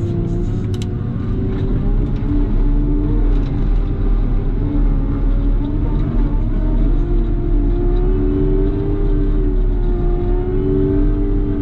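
CAT loader's diesel engine running steadily under working load while clearing snow; its pitch wavers and climbs somewhat past the middle as the revs come up.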